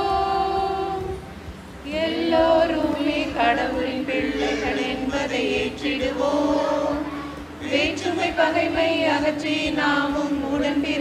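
Group of women singing a Tamil Christian song together in long held notes, with brief breaks between phrases about one and a half seconds in and again past the middle.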